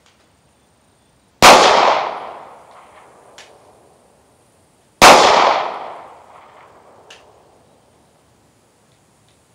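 Two shots from a Glock 43 9mm subcompact pistol, about three and a half seconds apart, each followed by a long echo dying away over a couple of seconds. A faint tick follows each shot about two seconds later.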